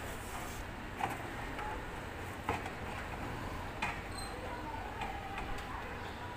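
Four short, sharp taps, irregularly spaced about a second or more apart, over a steady low background hum.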